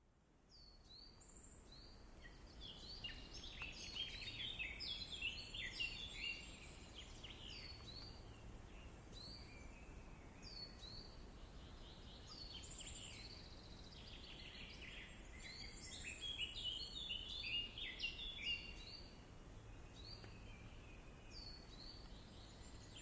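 Several birds chirping and singing in a forest, many short notes and trills overlapping in two busier stretches, over a faint steady low rumble; the sound fades in at the start.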